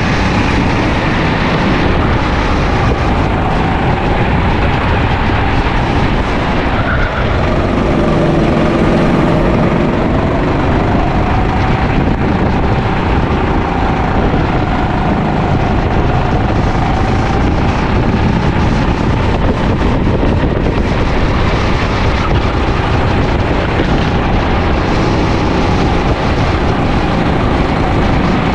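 Sodi LR5 rental kart's single-cylinder four-stroke engine running at race pace, heard from on board. The engine note rises and falls as the kart accelerates and lifts off through corners, over a steady rush of noise.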